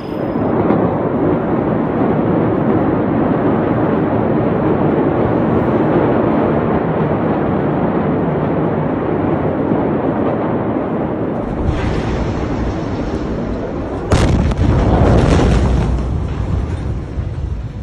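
Huge explosion: a long steady rumble, then a sudden sharp blast about fourteen seconds in, followed by a loud roar that fades over a few seconds.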